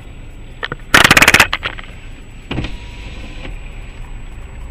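A car-mounted camera being handled and moved: a loud half-second rattle of rapid clicks about a second in, then a single thump, over the steady low hum of the car.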